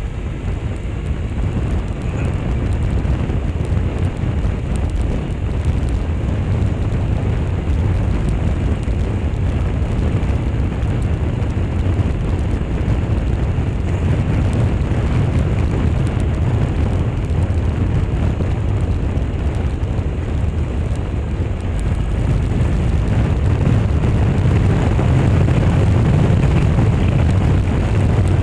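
Riding noise on a moving motorcycle: wind buffeting the microphone of a handlebar-mounted action camera over the engine and tyre noise, a steady low rumble that grows a little louder in the last few seconds.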